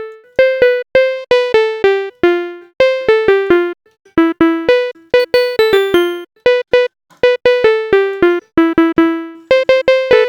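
Short plucky FM synth notes from Sytrus played on a keyboard in a loose melody, each starting with a sharp click and dying away quickly.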